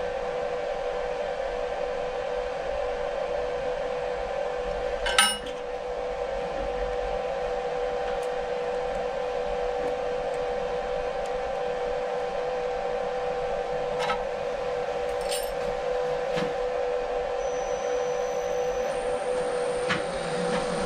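Steady hum with a few sharp metallic clicks from a hex key working the adjusting screw of a milling machine's boring head. The loudest click comes about five seconds in, and fainter ones follow about fourteen to sixteen seconds in.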